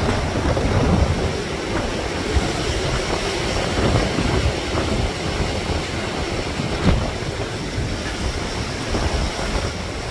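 Hurricane wind gusting across the microphone: a steady, uneven rumble overlaid with the hiss of wind-driven rain.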